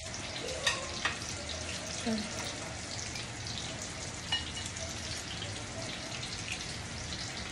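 Breaded pork cutlets deep-frying for tonkatsu, a steady sizzle of hot oil. A few sharp clicks stand out: about a second in, twice, and again about four seconds in.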